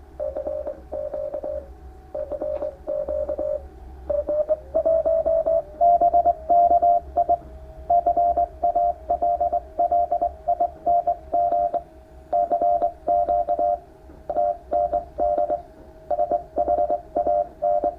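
Morse code sent as a keyed tone in dots and dashes: the phone app's Morse audio playing through the Bluetooth speaker together with the shortwave receiver picking up the QRP Pixie transmitter that the speaker keys. Sharp clicks mark the keying and a steady low hum runs underneath. About four seconds in, the tone steps slightly higher and the dots and dashes come quicker.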